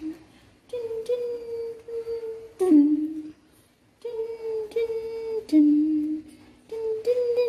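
A person humming a slow, lullaby-like tune: long held notes that drop lower at the end of each phrase, with a short pause between phrases.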